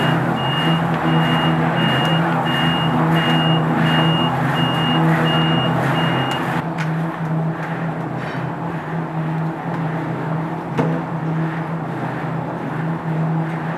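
Tea kill-green drum machine running, a steady mechanical hum with the rush of tea leaves tumbling inside the rotating drum. A high electronic beep repeats about twice a second over it and stops about six and a half seconds in.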